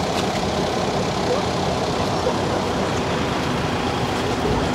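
Steady outdoor din of road vehicles running, with faint distant voices mixed in.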